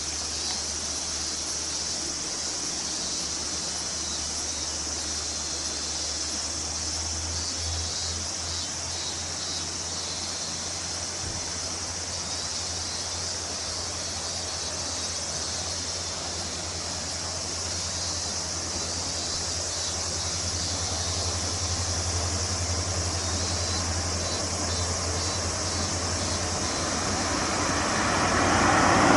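Insects trilling steadily while the diesel engine drone of the approaching Ametsuchi sightseeing train, a converted KiHa 47 diesel railcar, grows slowly louder and is loudest near the end.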